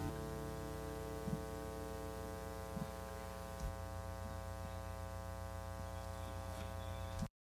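A steady electrical hum with a buzzy row of evenly spaced overtones and a few faint clicks, cutting off abruptly into dead silence near the end.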